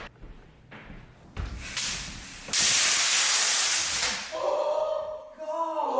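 Thousands of party snaps (snap pops) dropped at once and going off together: a dense, loud crackling burst lasting about two seconds, followed by people yelling.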